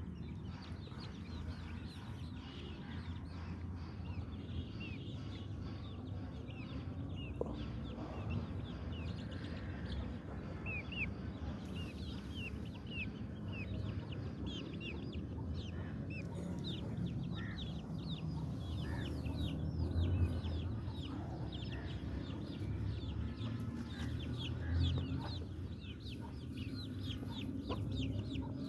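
Aseel chickens clucking, with many short high chirps that come thicker in the second half, over a steady low rumble.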